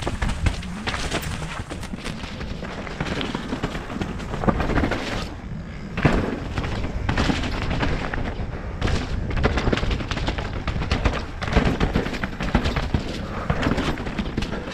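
Nukeproof Mega RS mountain bike descending a wet, rocky trail: tyres rolling over mud and stones, with frequent knocks and rattles from the bike over the bumps. Wind buffets the helmet-mounted microphone throughout.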